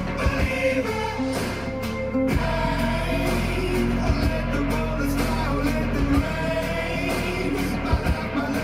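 A rock song with a sung vocal and a heavy, continuous bass line, played through a bare subwoofer driver running in free air, out of any box.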